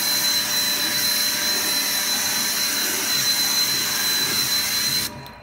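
Pressure washer spraying water onto a car's side panel: a steady hiss of spray with a steady high whine from the machine, cutting off suddenly near the end.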